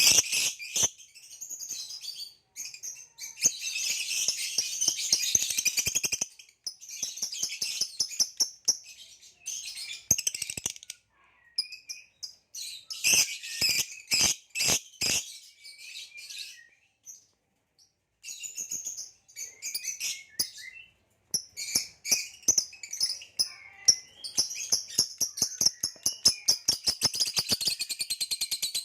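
Nyasa lovebird (a green hybrid male) singing: spells of fast, high-pitched chattering chirps mixed with sharp clicks, broken by short pauses, with a brief lull about halfway through.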